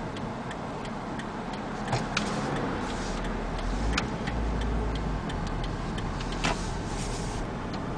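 Turn-signal indicator ticking steadily in the cabin of a Toyota Prius, about two ticks a second, over the low rumble of the car rolling slowly.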